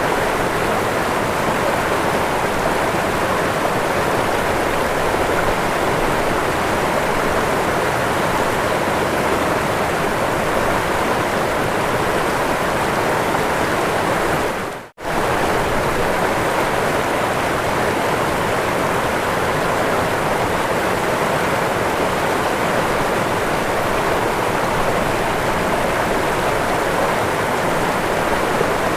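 Waterfall: a steady rushing of falling water that briefly dips to near silence about halfway through, then comes straight back.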